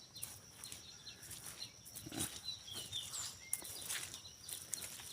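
Quiet outdoor ambience: scattered short bird chirps over a steady high-pitched whine, with a few faint clicks.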